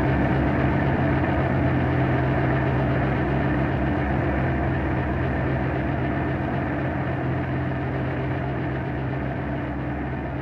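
Dark ambient drone music: a steady low hum of several held tones under a grainy, engine-like texture, slowly fading out.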